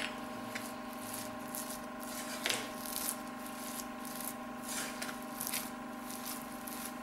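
Plastic spatula stirring and mashing thick cooked rice and horsegram in a non-stick pressure cooker pan, with irregular soft scrapes and squishes as the ground pepper is mixed in. A steady hum runs underneath.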